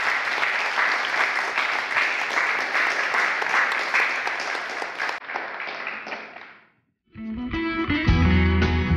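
Audience applauding, dying away about six seconds in; after a brief silence, guitar music starts.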